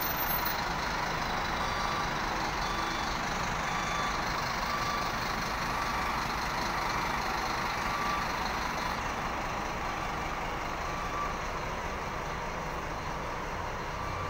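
City bus's diesel engine running steadily close by, with faint short beeps repeating during the first half.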